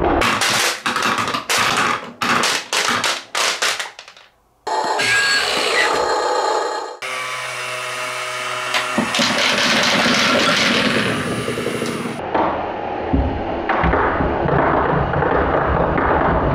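Glass marbles clatter and knock down wooden ramps in a run of sharp hits. After a short break, a battery-powered toy dump truck's small electric motor whirs steadily as it raises its bed. Then a load of plastic balls and marbles tumbles out in a dense rattling clatter onto a wooden tray.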